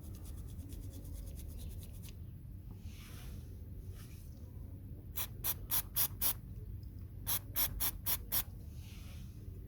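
Stiff brush scrubbing a door lock part with quick scratchy strokes. The strokes are rapid and fine for the first couple of seconds, then come in two runs of five or six brisk strokes, one about halfway and one near the end.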